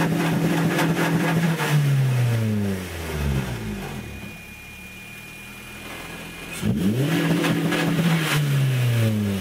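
Turbocharged Honda B18C GSR engine revved up twice and held at a steady pitch on its two-step rev limiter for about two seconds each time, with crackling from the limiter. After each hold the revs fall back to idle, the second rev starting a few seconds after the first has died away.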